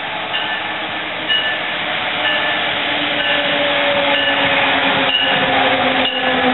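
Amtrak Acela Express electric trainset approaching and running past: a steady rushing train noise with a whine that slowly falls in pitch from about halfway through. Short high ding-like tones recur about once a second.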